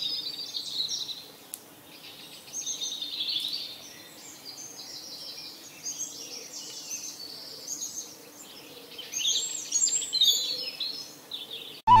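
Several songbirds singing at once, many short overlapping high chirps and trills, loudest about three seconds in and again near the end, over a faint steady background noise.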